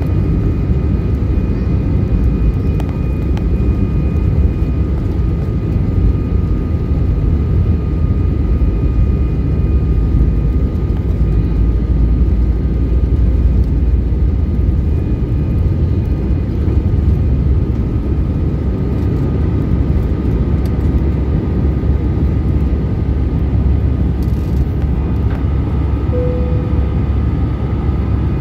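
Inside the cabin of an Airbus A320-216 during its takeoff roll and liftoff: the CFM56-5B engines at takeoff power give a loud, steady deep rumble with a faint thin whine held above it.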